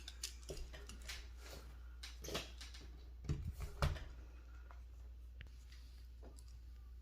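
Scattered light clicks and a few soft knocks over a steady low hum: small hard parts being handled, with the louder knocks about two and a half seconds in and again a little past three seconds.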